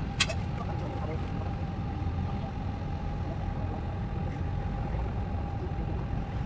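Steady low outdoor rumble with a faint steady hum above it, and one sharp click right at the start.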